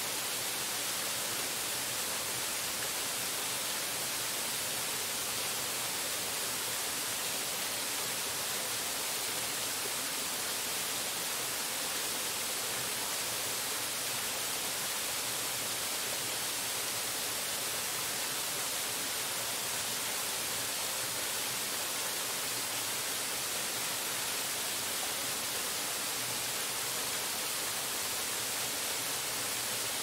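Waterfall's steady rushing of falling water, an even hiss that never changes.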